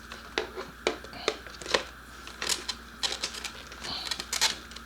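Irregular sharp clicks and light knocks of hard plastic parts being handled and pushed into place, a tabbed plastic piece being slid into its mounting on the motorcycle, with a brief scrape near the end.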